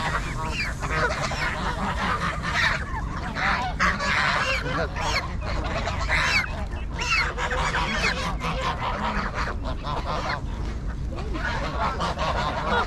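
A large flock of Canada geese and white domestic geese honking, many calls overlapping without a break.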